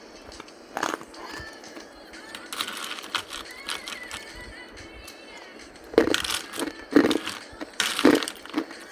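Hard ice being bitten and crunched between the teeth close to the microphone: about four loud, sharp crunches roughly a second apart, starting about six seconds in.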